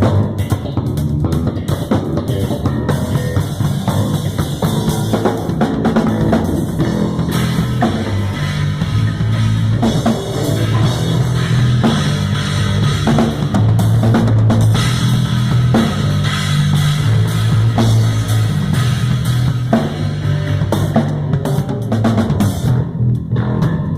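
Drum kit and electric bass guitar playing a groove together: steady kick, snare and cymbal hits under changing low bass notes, as a warm-up jam.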